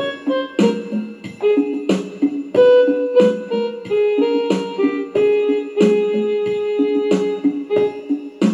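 Electronic keyboard played by a child: a simple melody of single notes over a steady beat, about one and a half beats a second.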